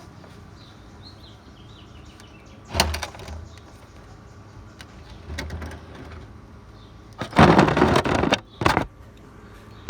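Handling noise: a sharp knock about three seconds in, a softer rustle, then a loud rustling scrape lasting about a second near the end, followed by another sharp click.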